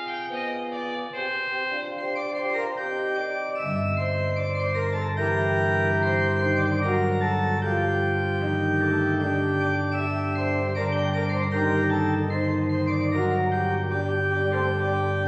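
Pipe organ playing the postlude in sustained chords; deep pedal bass notes come in about four seconds in and hold beneath the chords.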